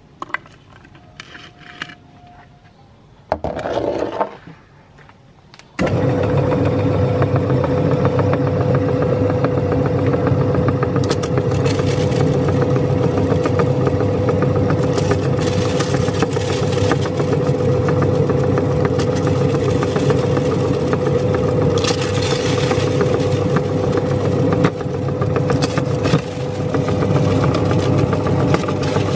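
A motor-driven meat grinder switches on about six seconds in and runs with a steady hum, while crunchy cookies fed into it crack and crunch irregularly as they are ground through the plate. A brief louder noise comes a few seconds before it starts.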